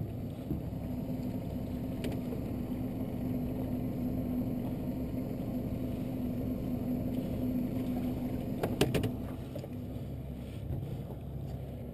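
A steady low machine hum with one held drone tone, from running machinery on or beside the moored boat. The tone fades about three quarters of the way in, and a few sharp clicks or knocks come just before it fades.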